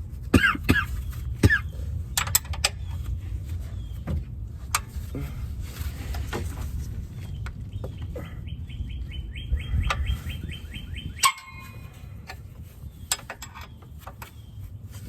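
Hand tools clicking and knocking on metal under a car during an oil change, with a run of rapid even clicks like a ratchet wrench working a fitting loose about eight seconds in. Short chirps near the start.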